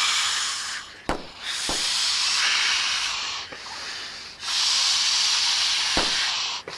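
Air being blown hard into rubber balloons: long breathy hisses, one after another with short pauses between them. A few short knocks fall in the gaps, about a second in and again near the end.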